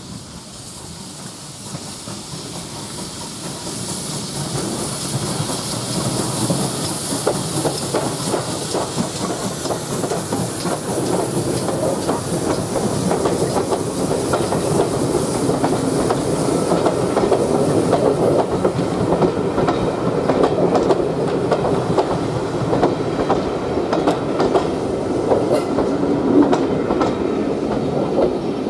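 Steam locomotive hauling a passenger train, getting louder as it approaches. Then the coaches pass close by, their wheels clattering over the rail joints in a steady clickety-clack.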